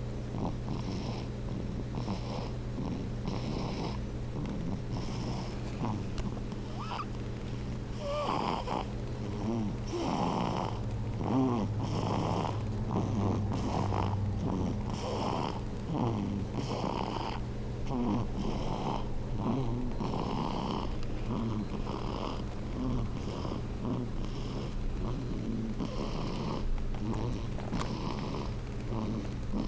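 Sleeping infant snoring, short rhythmic snoring breaths repeating roughly once a second.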